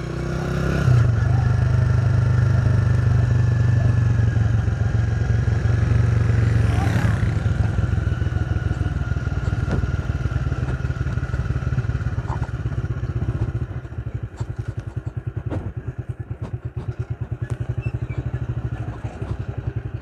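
A vehicle's engine running steadily at low revs while it travels, with rattling from a rough road; the drone eases in the second half and turns uneven.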